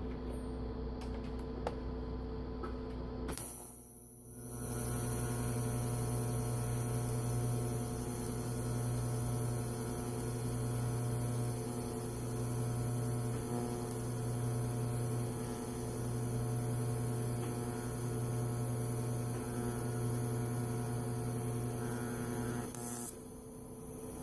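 Miller Syncrowave 250 TIG welder: its mains hum at idle, then a brief hiss as the arc strikes about three seconds in, followed by a steady buzzing hum while the arc runs on steel angle iron. Near the end there is another brief hiss, and then the arc cuts off.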